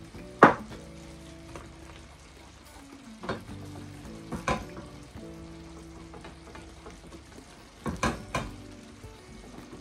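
White sauce being stirred in a pan on the hob, the utensil knocking against the pan a few times, loudest about half a second in and twice in quick succession near the end, over a low steady hiss of the sauce cooking. Soft background music runs underneath.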